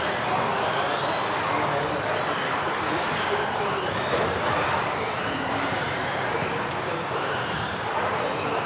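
Several radio-controlled off-road buggies racing in a sports hall, their electric motors whining up and down in pitch over a steady hiss of tyres.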